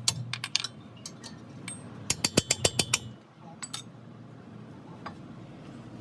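Metallic clicking and clinking of hand tools and brake parts being worked, with a quick run of about eight clicks about two seconds in, a few of them ringing briefly.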